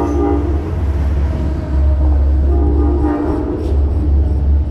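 Amtrak passenger train arriving at the station under a steady low rumble. Its horn sounds a held chord that cuts off about half a second in, and fainter pitched tones come again around three seconds in.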